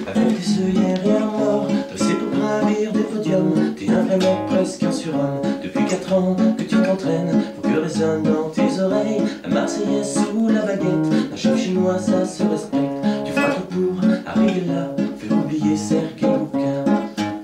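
Acoustic guitar strummed in a steady rhythm, playing chords as the instrumental lead-in to a song.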